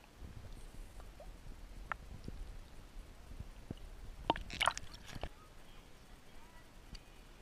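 Muffled low rumble of water and handling picked up by a GoPro in its waterproof housing, with scattered clicks and a short cluster of sharp crackling clicks about four to five seconds in.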